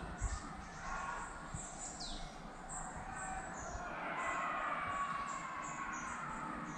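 Woodland birds chirping with short, high calls, one of them a quick downward sweep about two seconds in. Under them is a faint distant hubbub, swelling a little midway, which fits children's voices from an event in a nearby field.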